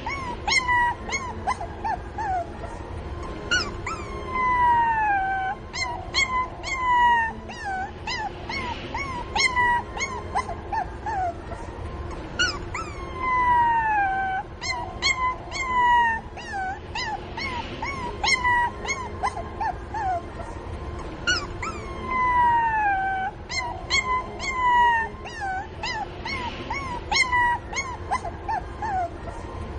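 Puppy crying for its mother: a string of short, high-pitched yelps and whimpers, broken every few seconds by a longer whine that falls in pitch. The pattern repeats about every nine seconds.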